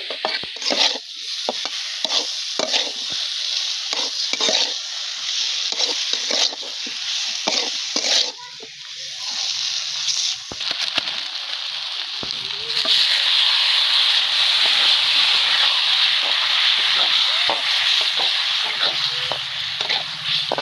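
Food sizzling in hot oil in a pan while a spatula stirs and scrapes it in short strokes. About two-thirds of the way in, the sizzling grows louder and steadier.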